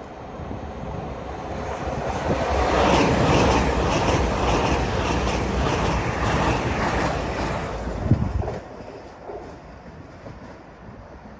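A train passing at speed on the main line: the rush of it builds over the first couple of seconds, with wheels clattering over the rails, then it drops away suddenly about eight and a half seconds in.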